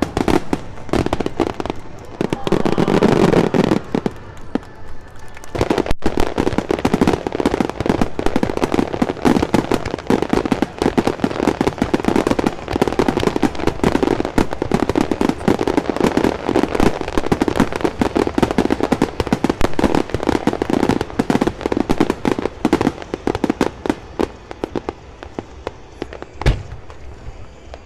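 Aerial fireworks display: a dense, rapid run of overlapping bangs and crackles, thinning out near the end, with one louder single bang shortly before the end.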